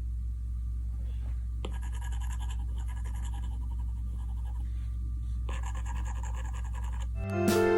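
Stylus drawing on a tablet screen: faint, quick scratching strokes that start about two seconds in and pause briefly partway, over a steady low hum.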